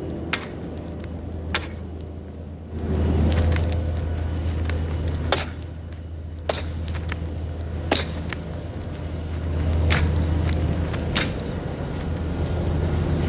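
Heavy engine running steadily with a low drone that swells and eases a little, under scattered sharp clicks and knocks every second or two.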